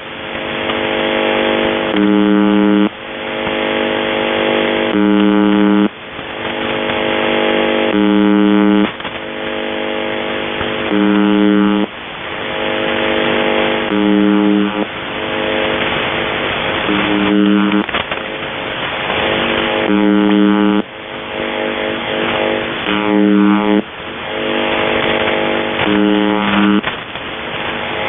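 The UVB-76 shortwave station ('The Buzzer') received by radio: a buzz tone about a second long that repeats about every three seconds over steady radio static. Faint sliding whistles of interference pass through about two-thirds of the way in.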